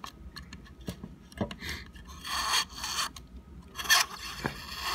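Razor-blade scraper scraping adhesive residue off a glass 3D-printer bed: a few small ticks, then two scraping strokes, a longer one past the middle and a shorter one near the end.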